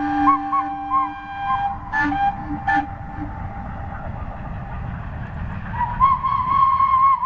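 Steam whistle of the VIC 32 Clyde puffer: one long low blast, then two short toots about two and three seconds in. About six seconds in, a steam locomotive answers with a long, higher whistle that is still sounding at the end.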